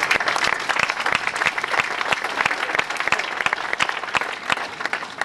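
Crowd applauding, many hands clapping.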